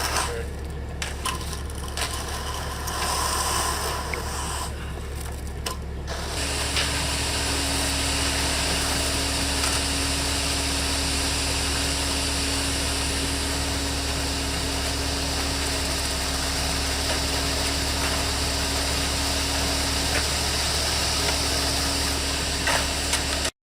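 Construction work sounds: uneven scraping and rubbing for about six seconds, then a steady machine noise with a constant low hum that cuts off suddenly near the end.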